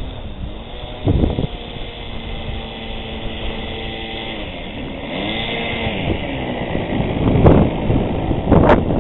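Funtana radio-control aerobatic model plane's engine in flight, its pitch sliding down and back up as it passes and turns, holding steady for a couple of seconds in the middle. Bursts of wind noise hit the microphone about a second in and again near the end.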